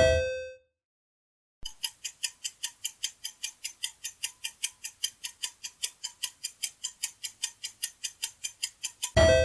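Quiz countdown-timer sound effect: a clock ticking quickly and evenly, about five ticks a second, after a short pause. Near the end a bell-like chime with several tones rings out and fades. A chime also fades at the start.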